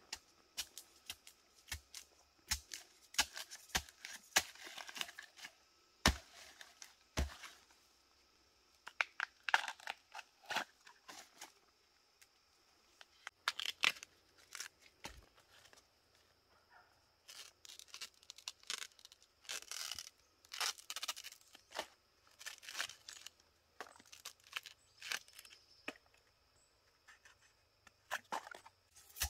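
Fresh bamboo shoot husks being stripped off by hand: irregular bursts of crackling, tearing sheaths, with a couple of sharp machete knocks about six and seven seconds in.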